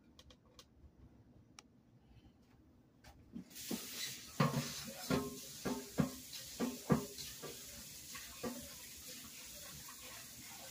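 Kitchen tap turned on about three and a half seconds in, water running steadily into a metal pot in a stainless steel sink as rice is rinsed. A run of clanks from the pot knocking in the sink comes over the water for the next few seconds.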